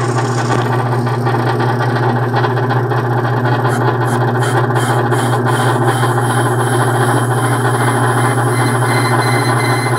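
Small metal lathe running steadily while turning an aluminium tube, a constant motor and drive hum with no change in speed.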